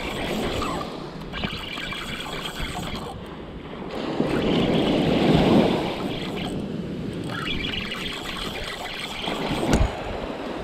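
Small ocean surf breaking and washing up a sandy beach, the foam hissing as it spreads and drains back; one wash swells loudest about halfway through. A brief thump near the end.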